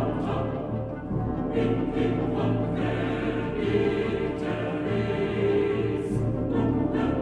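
Orchestral music with a choir singing.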